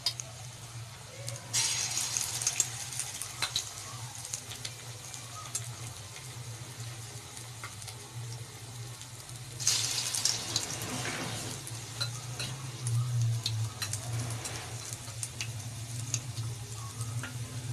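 Chicken pieces in a besan (gram-flour) batter frying in hot oil in a karahi. The oil sizzles and crackles steadily, surging loudly about two seconds in and again near ten seconds as a piece goes in. A steady low hum runs underneath.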